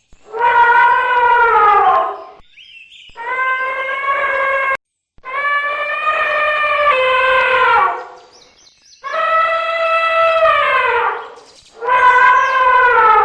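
Elephant trumpeting: five long calls of about two seconds each, each falling in pitch as it ends, with short gaps between them. The second call cuts off suddenly.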